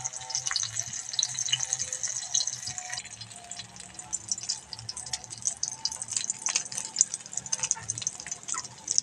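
Tomato slices topped with egg-and-flour batter sizzling in hot cooking oil in a wok, a steady hissing crackle full of small pops.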